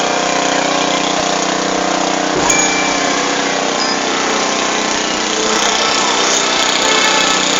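Procession band playing a funeral march, holding loud sustained chords that change every few seconds.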